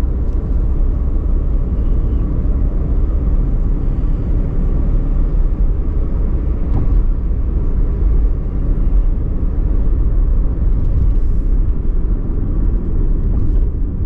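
A steady low rumble that holds at an even level throughout.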